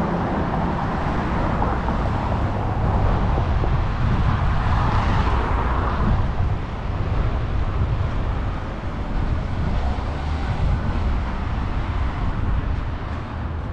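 City street traffic passing under a steady low rumble. One vehicle swells up and fades away about four to six seconds in.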